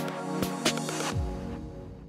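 Outro music with steady held tones and sharp percussive hits. A little past a second in, a deep tone falls in pitch and the music fades away.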